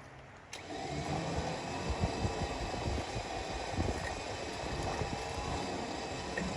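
Sawmill engine running steadily with a low rumble and scattered knocks, after a brief quieter moment at the start.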